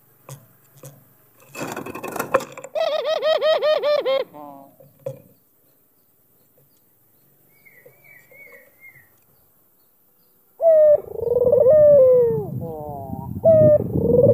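White ringneck (Barbary) dove cooing: a brief rustle, then a quick pulsed run of coos, and near the end a long rolling coo that falls in pitch and starts over. Faint high chirps of another small bird come in the quiet middle.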